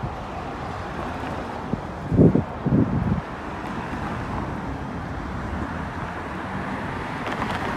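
Steady city street traffic noise with wind on the microphone, broken by a few short louder bursts about two to three seconds in.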